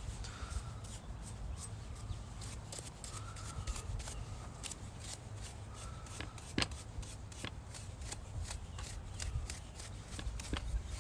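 Paintbrush bristles brushing paint onto a rifle part in light strokes: a run of irregular scratchy strokes and ticks, with one sharper tick just past halfway.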